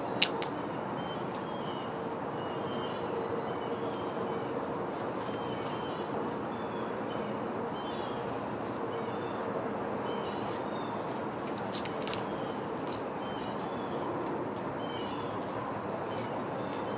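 Steady outdoor background hiss with small birds chirping here and there throughout, and a faint steady hum underneath. A sharp click comes just after the start, and a few fainter ticks come later.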